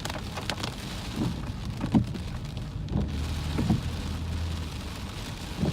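Rain and gusty wind striking a car driving through a thunderstorm at night, heard from inside, over a steady low rumble, with several short thumps at uneven intervals.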